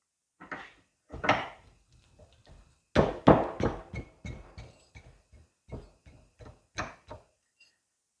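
A run of irregular metal clunks and knocks, some briefly ringing, as the oiled piston and rod of a backhoe's hydraulic stabilizer cylinder are worked back into the cylinder barrel; the loudest knock comes about three seconds in.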